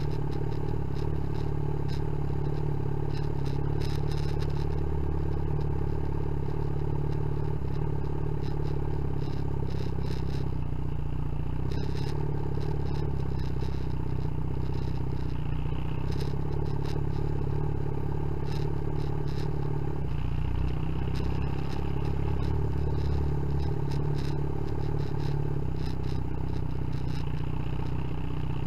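Yamaha XJ6N's inline-four engine running steadily at low speed through a newly fitted aftermarket exhaust, with light clattering on top.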